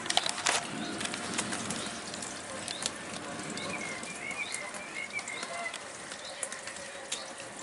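Outdoor ambience of light rain: scattered drops tick irregularly over a steady hiss. A bird twitters faintly for a couple of seconds about halfway through.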